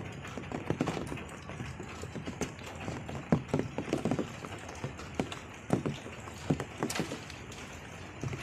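Irregular clicks and light knocks, a few a second, as the thin metal prongs of a hand-made multi-pronged fishing spear are gripped and worked by hand.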